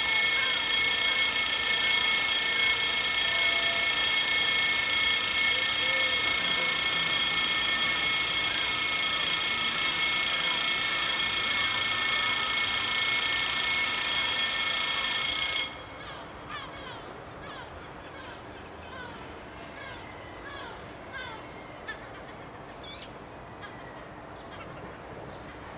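Level crossing warning bells ringing steadily with a high, many-toned ring, cutting off abruptly a little past halfway once the barriers are fully down. Faint bird chirps follow.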